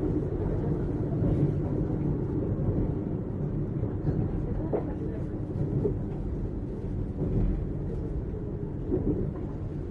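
JR 455-series express-type electric train running along the line: a steady low rumble of wheels and running gear on the rails.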